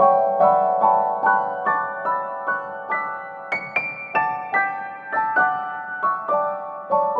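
Background piano music: a gentle melody of single notes, about two or three a second, each struck and fading.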